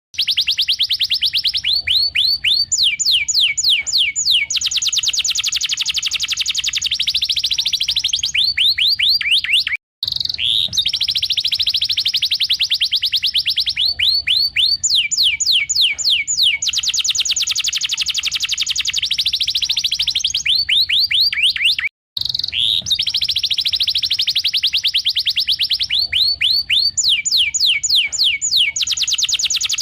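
Domestic canary singing: long, fast trills of rapidly repeated high notes alternating with quick downward-sweeping notes, phrase after phrase. The song cuts out briefly twice, about 10 and 22 seconds in.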